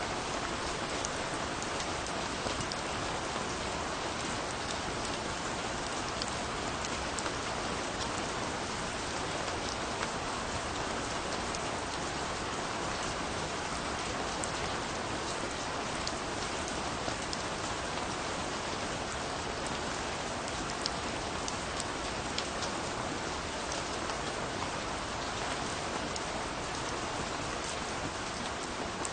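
Steady rain: an even hiss of falling rain with many separate drops ticking close by.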